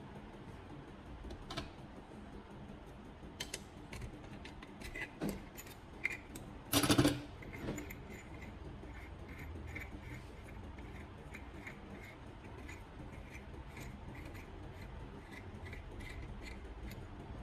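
Scattered light clicks and small clatters of handled hard objects, with one louder clatter about seven seconds in, then faint regular ticking over a low hum.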